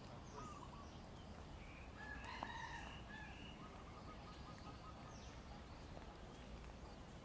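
Faint bird calls: a longer call with several pitches about two to three seconds in, and a thinner, held call around four to six seconds.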